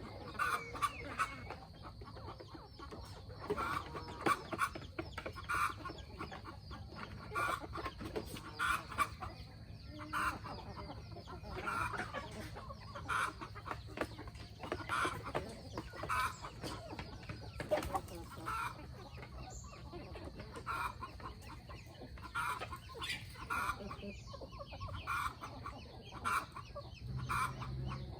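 A flock of free-range chickens clucking, with many short calls overlapping one another.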